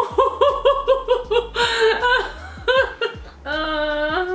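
A woman laughing in a quick run of short bursts, falling in pitch, then a long held vocal note that steps up slightly in pitch near the end.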